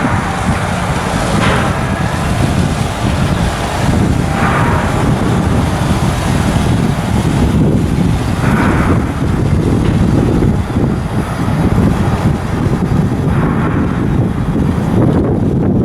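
Steady low rumble of a cargo ship under way, with wind on the microphone and a brighter hiss that swells four times.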